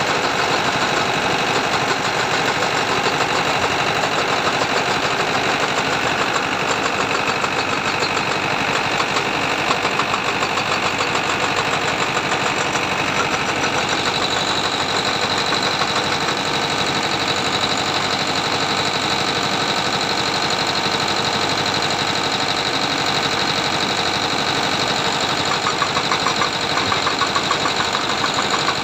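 Heavy diesel machinery running steadily, with a thin high whine that grows stronger about halfway through.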